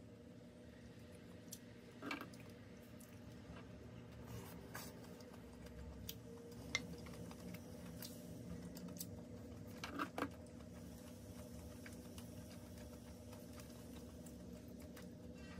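A faint steady hum, with a few light taps and clicks of chopsticks and a wooden spoon against an earthenware pot. The loudest taps come about two, seven and ten seconds in, with a quick double tap at ten.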